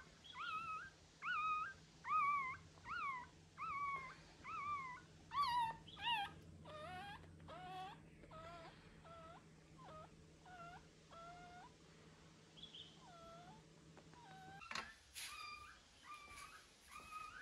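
A young puppy separated from its mother crying with a string of short, high whimpers that bend in pitch, about one a second. The cries turn fainter and lower for a stretch in the middle and come loud again near the end.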